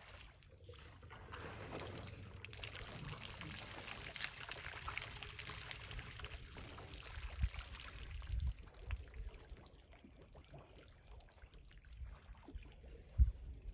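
Water pouring and trickling, steadiest through the first ten seconds and then fading, with a few dull low thumps, the strongest near the end.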